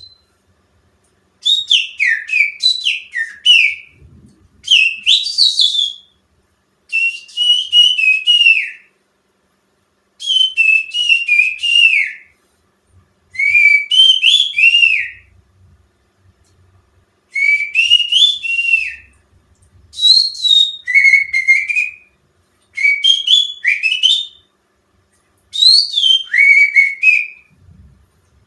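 Finger whistling that imitates the green leafbird (cucak ijo) song as a lure call: about nine short phrases of quick, high, up-and-down whistled notes, each a second or two long, with brief pauses between them.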